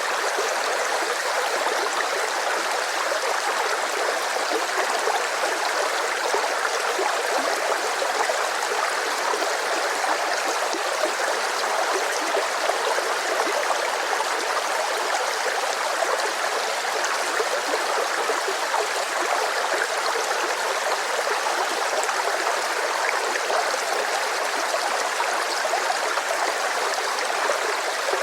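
Rushing river water flowing steadily, an even churning rush with no pauses.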